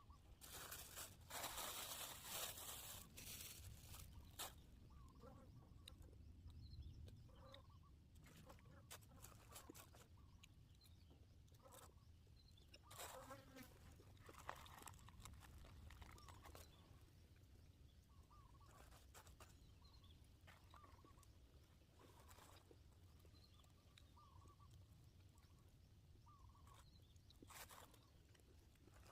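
Faint outdoor ambience, close to silence: scattered short bird chirps and a few brief rustling or handling noises.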